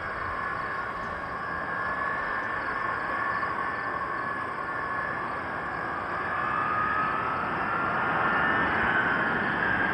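B-52 bombers' jet engines running as they taxi: a broad rush with steady high-pitched whines. About two-thirds of the way in it grows louder and one whine rises in pitch.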